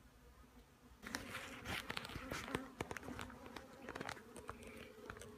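Honeybees buzzing with a steady hum around an open hive. From about a second in, a run of knocks, clicks and scraping as the wooden nuc box is opened and a frame of bees is handled.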